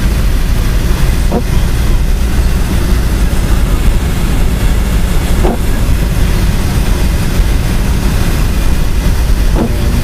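Steady cabin noise of a vehicle driving on a snow-covered road: engine, tyres on packed snow and wind, heavy in the low end. A brief rising sound comes about every four seconds.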